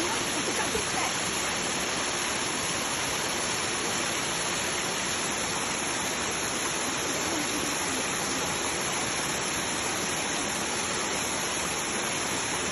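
Waterfall rushing steadily, a constant roar of falling water.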